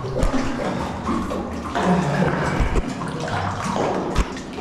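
Water splashing and sloshing close by as a person wades through cave river water, with a few dull knocks.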